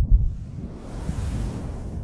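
Earmuffs worked against the microphone as an ASMR trigger, giving a muffled rushing swell like surf. It is loudest at the start and slowly fades.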